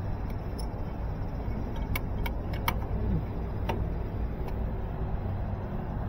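A few sharp metallic clicks as a screwdriver and a small steel junction box are handled, over a steady low rumble.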